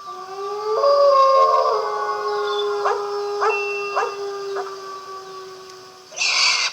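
Recorded dog howl sound effect played by the program: one long howl that rises at its start and is then held, with four short yelps breaking in between about three and four and a half seconds in. A short noisy burst follows near the end.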